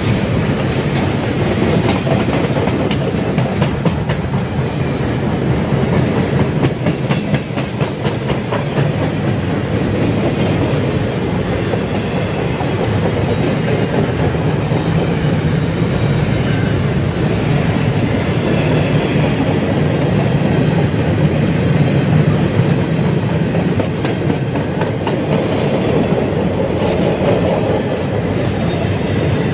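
Freight cars of a CSX freight train rolling past at close range: a steady rumble of steel wheels with continual clicking and clattering over the rail joints, and a faint high wheel squeal near the end.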